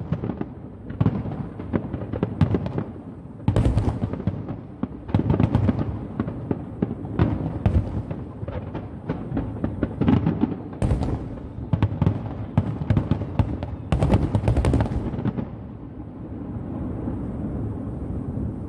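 Aerial fireworks shells bursting in rapid volleys of sharp bangs, many close together. About fifteen seconds in the bangs stop and a low, steady rumble is left.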